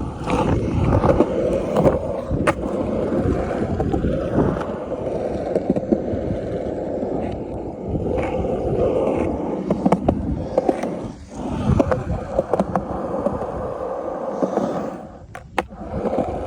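Skateboard wheels rolling over pavement: a continuous rumble with scattered sharp clacks, easing off briefly near the end.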